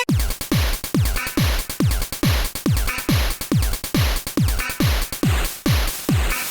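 Electronic dance music with a steady kick drum at about two beats a second and a hissing hi-hat layer above it.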